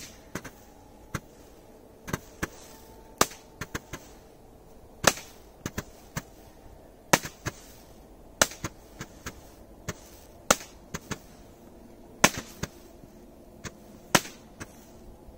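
Three Roman candles firing together: a long run of sharp pops at uneven spacing, about two a second, each one a star being shot out of a tube, some pops louder than others.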